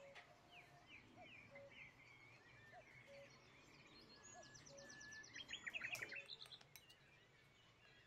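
Faint birdsong: several birds chirping with short repeated notes, a rapid trill about four seconds in and the loudest burst of calls near six seconds in.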